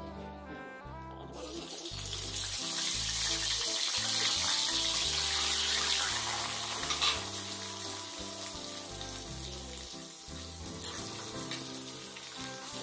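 Sliced onions hitting hot oil in a steel kadhai and frying with a loud sizzle that starts about a second in and eases off in the second half, with a few clinks of a steel spatula near the end. Background music plays throughout.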